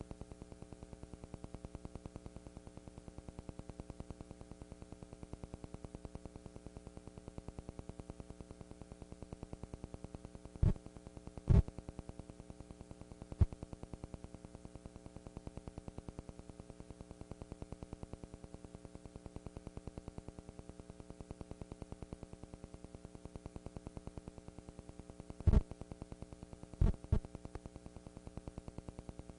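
Steady electrical buzz of mains hum on the recording, unchanging throughout, with a few sharp pops: two close together about a third of the way in, one shortly after, and three close together near the end.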